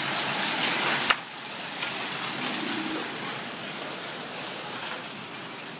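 Hail and rain coming down hard, a steady hiss. About a second in there is a sharp knock, and after it the hail goes on quieter and muffled, heard from inside the house.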